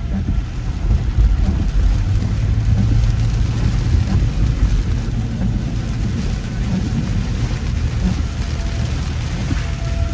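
Heavy rain on a car driving through a thunderstorm, with a steady low rumble of road and wind noise under the hiss of the rain.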